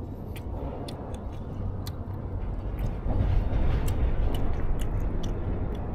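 Chewing and eating noises, with irregular small clicks, over a steady low rumble that grows louder about three seconds in.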